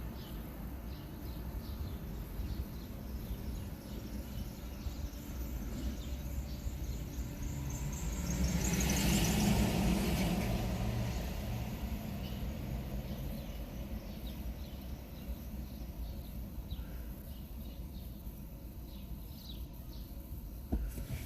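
Steady road and tyre rumble of the electric Nissan Leaf driving along, with no engine note. About a third of the way in, a louder rush swells and fades over a few seconds.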